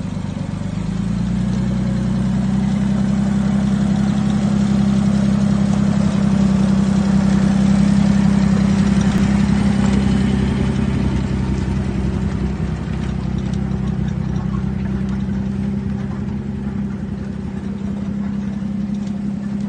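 Engine of a Bombardier half-track truck running steadily under light load as it tows two loaded firewood trailers slowly past. It grows louder as the truck comes closer, loudest about eight seconds in, then eases off a little as it moves away.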